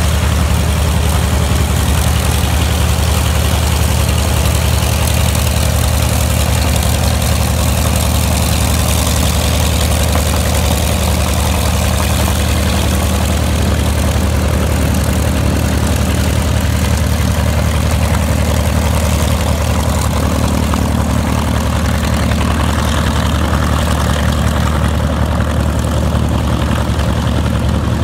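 Douglas A-1 Skyraider's Wright R-3350 18-cylinder radial engine running steadily at low taxi power, propeller turning. The sound grows a little duller near the end as the plane taxis away.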